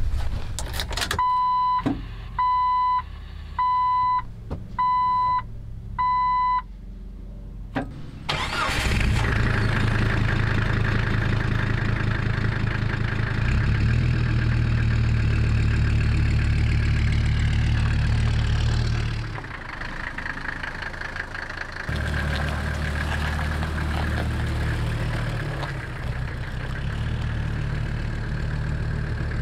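A dashboard chime beeps five times at an even pace. Then the OM617 inline five-cylinder turbo diesel swapped into a Jeep Wrangler TJ cranks, starts and keeps running with a steady low pulse, dipping quieter for a few seconds near the end.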